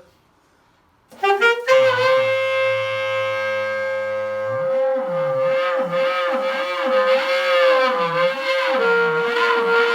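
Saxophone growl: one long held note with the player's own voice sung through the horn at the same time, giving a buzzing rasp. The voice holds one low pitch at first, then slides up and down beneath the steady sax note from about halfway; the sax note steps slightly lower near the end.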